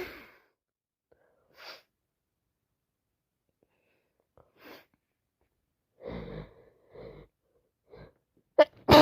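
A woman sneezing with a cold. The fading tail of one sneeze, then a few short breaths as the next one builds, and a loud sneeze bursting out near the end.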